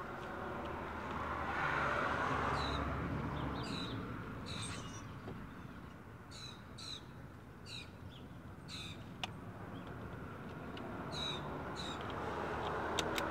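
Birds calling: a series of short, high, sharp calls, about a dozen, some in quick pairs, over a low background rumble. A few sharp clicks near the end.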